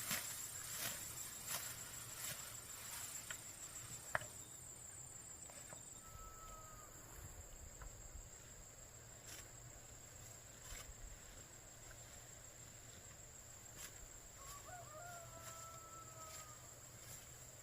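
A rooster crowing faintly once near the end, a drawn-out call, with a shorter faint call earlier. A steady high-pitched drone runs underneath.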